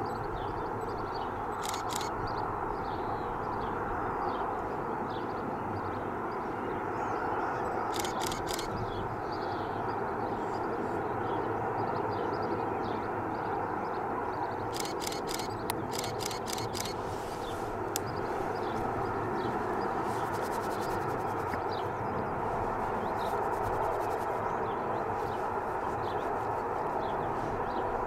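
A train passing at steady speed: even rolling noise from wheels on rail, with several quick groups of clicks as wheelsets run over rail joints.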